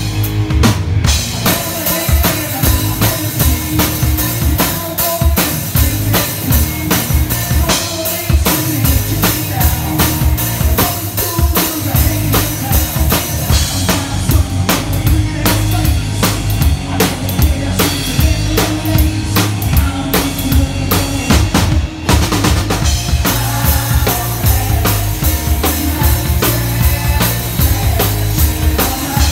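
Rock drum kit played steadily, with kick drum, snare and cymbal hits, and the rest of the band's music behind it.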